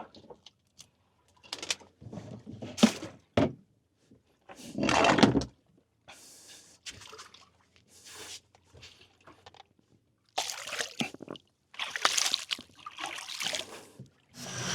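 Water splashing and pouring in irregular bursts, with a few sharp knocks of gear being handled in a small fishing boat.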